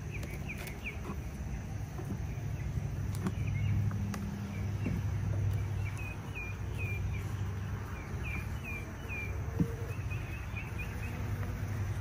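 Honey bees humming steadily from an open hive, with a few sharp clicks as a hive tool pries the frames loose. Small birds chirp now and then, most often toward the middle.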